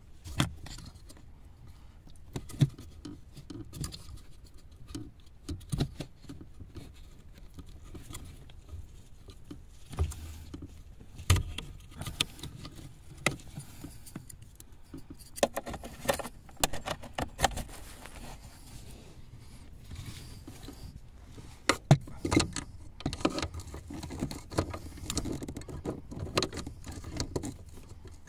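Hand tools and parts handled under a car's dashboard: irregular metallic clicks, knocks and scraping from a screwdriver working at a bracket, with a few louder knocks.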